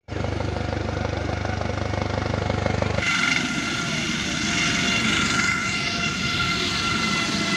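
Helicopter flying in, its main rotor giving a steady low beat. After a sudden change about three seconds in, it sounds close by, as a high turbine whine over a rushing hiss of rotor wash while it comes in to land on the field.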